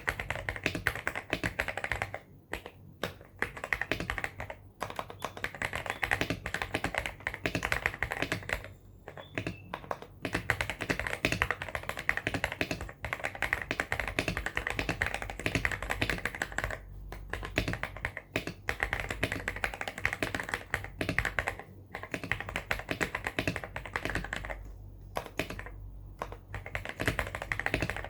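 Fast continuous typing on a Weikav WK75 Pro mechanical keyboard with MMD Cream linear switches and PBT keycaps, a dense stream of key clicks broken by a few short pauses.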